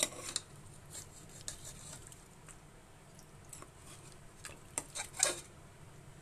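A metal spoon scraping and clinking against the inside of a pressure cooker pot as thick chicken curry is stirred, in a handful of scattered strokes, the loudest near the end.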